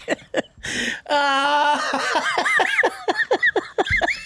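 Men laughing hard in repeated high-pitched laughs, after a short held voiced note about a second in.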